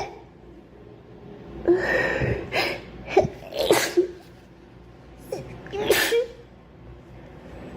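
A girl sneezing several times in a row, a sneezing fit. The outbursts come in a cluster from under two seconds in to about six seconds in, with short breaths between them.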